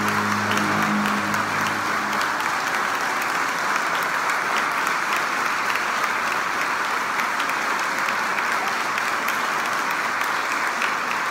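Audience applauding steadily, with the last low chord of the piano accompaniment fading out under the clapping in the first two seconds.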